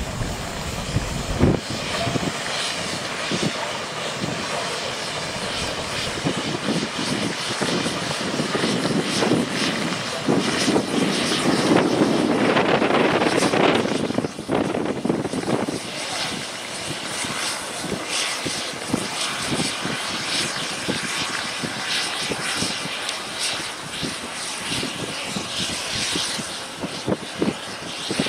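Diesel shunting locomotive's engine running as it moves through the yard, a steady drone that swells briefly near the middle, with scattered knocks.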